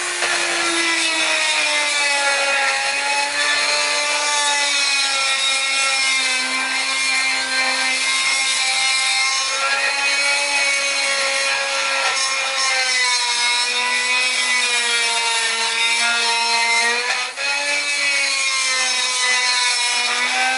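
An old 1990s Dremel rotary tool running with a small grinding bit pressed into a bolt hole in a metal mounting plate, grinding the tapered bottom of the countersink flat. Its motor whine is steady but its pitch sags and recovers as the bit is loaded. It dips briefly near the end.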